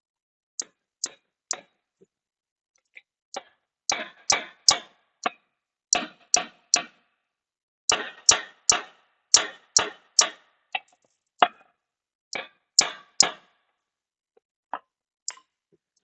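Hammer striking metal in quick sets of about three blows, repeated with short pauses between sets, while working a stuck bell housing loose from a forklift transmission.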